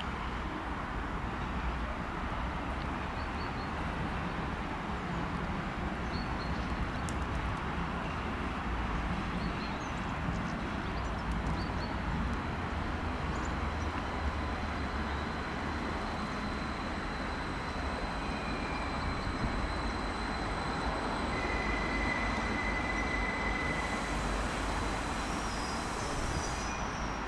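WESTbahn Stadler KISS double-deck electric train running slowly in to the platform: a steady rumble with a thin high whine. A brief high squeal comes about three-quarters of the way through.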